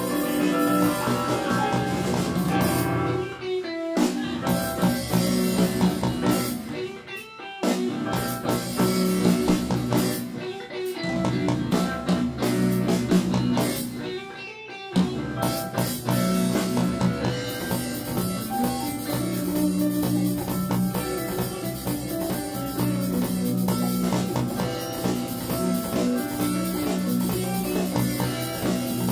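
Live band playing an instrumental piece on electric guitar, keyboards, bass and drums. In the first half the band cuts out together for short breaks a few times, then plays on steadily.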